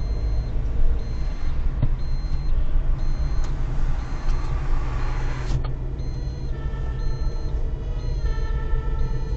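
Car driving along a road: steady low rumble of engine and tyre noise.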